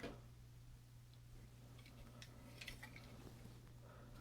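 Near silence, with a few faint clicks of plastic model kit joints as the figure's legs are moved, about two to three and a half seconds in.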